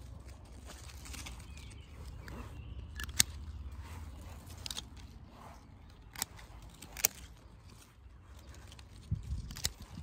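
Hand shears snipping rose stems: a few sharp clicks spaced a few seconds apart, the loudest about three and seven seconds in, over rustling of leaves and a low rumble.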